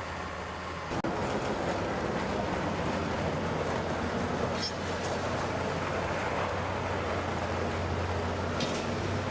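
Heavy machinery or a large vehicle running: a dense, steady mechanical noise over a low steady hum, which gets louder about a second in.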